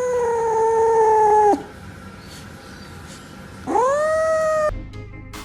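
A pet animal howling in two long held calls. The first sinks slightly and stops about a second and a half in. The second, shorter one swoops up and holds near the end.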